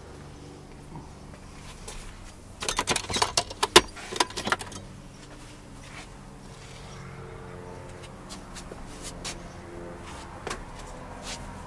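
A burst of sharp clicks and rattles about three seconds in, then a few scattered single clicks, over a steady low hum inside a van.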